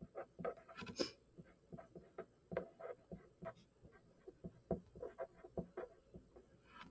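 Pen scratching across paper in quick, irregular short strokes as words are written by hand.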